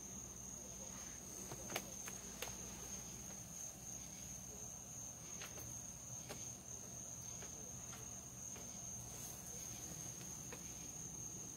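Night insects trilling steadily in one high, unbroken tone, with a few faint clicks.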